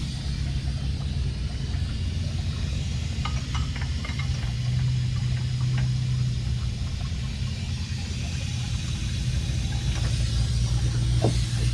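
A motor running with a steady low hum, and a few light clicks from tools being handled.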